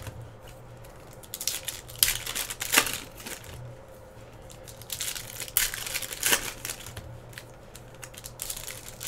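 Trading-card pack wrappers crinkling and tearing as packs are opened and cards handled, in short spells of rustling a few seconds apart.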